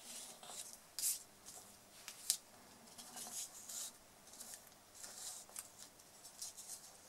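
Faint rustling and scraping of fingers working a linen ribbon bow against a paper card, with a few sharper brushes about a second in and just after two seconds.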